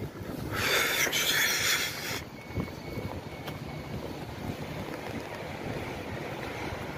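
Street traffic rumble with engines running, broken about half a second in by a sharp hiss lasting under two seconds, the loudest sound here.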